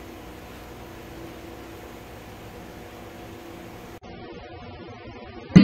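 Steady background hum, then near the end a single sharp, loud crack of a golf club striking the ball off an artificial-turf hitting mat.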